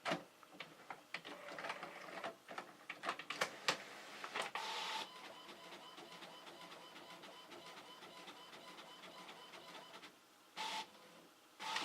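A printer running: a quick run of clicks and clatter, then a faint steady whir.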